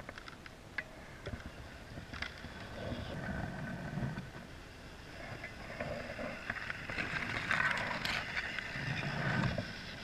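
Small electric motors and gear drive of an RC scale snowcat with three motors, whining steadily as it pushes through deep snow, with scattered clicks. The whine grows louder about seven seconds in, then falls back near the end.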